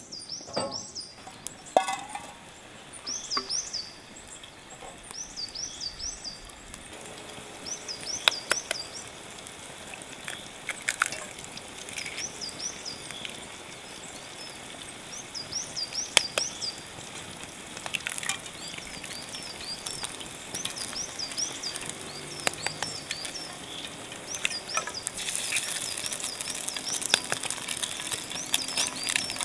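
A songbird repeating short rising-and-falling whistled calls in quick groups of two to four, with occasional sharp clicks. Near the end a rising hiss comes in as eggs fry in a pan over a wood fire.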